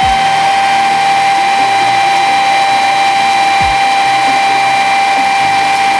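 Greenote GSC50 cordless cyclonic stick vacuum running steadily on the lower of its two power settings: a steady high whine over a hiss.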